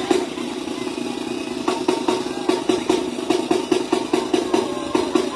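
Live Sinaloan banda music: brass band with tuba and drums playing a steady beat. The drum hits thin out briefly about a second in, then the beat resumes.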